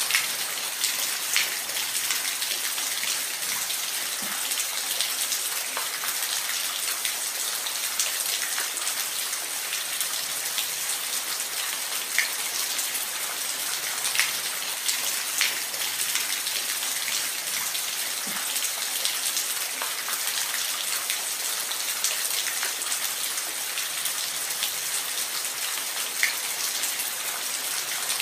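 Steady rain with scattered individual drops ticking on a surface.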